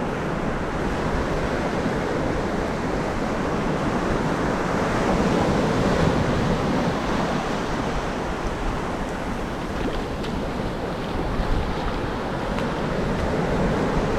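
Ocean surf breaking and washing in steadily, swelling a little about halfway through, with wind buffeting the microphone.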